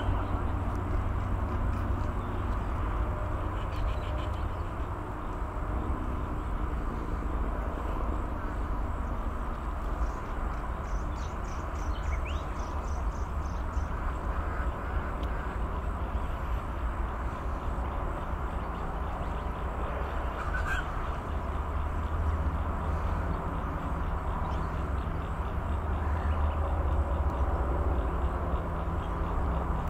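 Outdoor ambience at a waterside: a steady low rumble with faint bird calls now and then, including a short rapid trill about ten seconds in.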